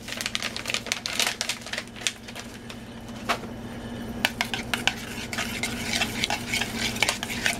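A utensil stirring mashed potatoes in a metal pot, with irregular scraping and clinking against the pot's sides and bottom. A steady low hum runs underneath.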